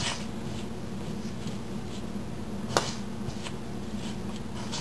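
Fingers mixing and rubbing flour with yogurt in a stainless steel bowl: soft scratchy rustling with light clicks, and one sharper tap against the bowl about three seconds in.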